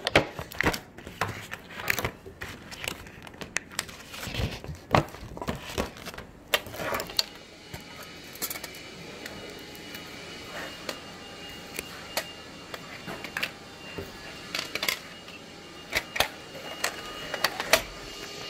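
Irregular clicks and knocks as a pencil case and its stationery are handled and set down on a wooden table. From about seven seconds in, a steady hum runs underneath.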